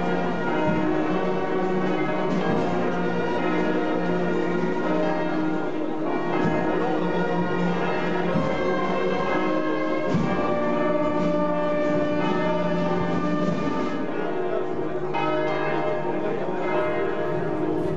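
Church bells ringing, a dense peal of overlapping bell tones that carries on without a break.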